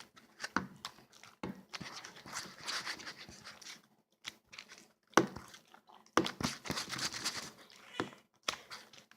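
Homemade slime being worked: wet, sticky squishing and crackling, broken by sharp clicks and pops.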